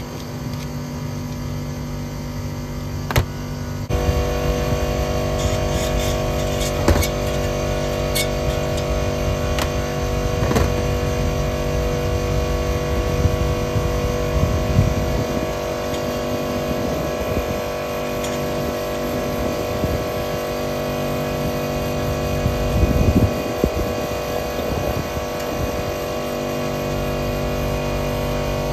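Actron Air package unit running, its fixed-speed Copeland scroll compressor giving a steady hum with several fixed tones that grows fuller about four seconds in. A few light clicks and taps of brass fittings and tools being handled.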